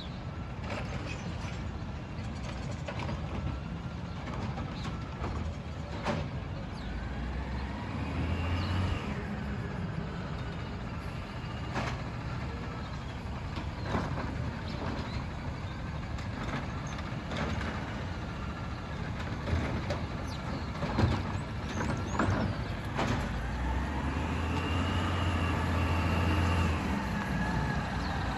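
A CNG Peterbilt garbage truck working a street. The engine runs steadily and revs up twice, each time with a whine that rises and falls, and sharp clanks and air-brake hisses come in between.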